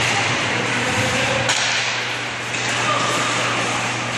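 Ice hockey game noise in a rink: a constant hiss over a steady low hum, broken by one sharp knock about a second and a half in.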